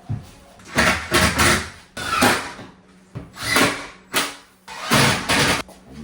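Wooden cabinet parts scraping and rubbing against each other in five short, loud, uneven bursts.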